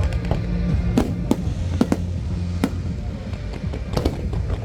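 Aerial fireworks bursting, about six sharp bangs at irregular intervals, over music with a steady deep bass.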